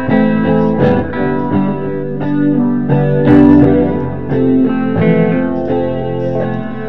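Multi-track instrumental guitar jam: several overdubbed guitar parts plucking notes over one another.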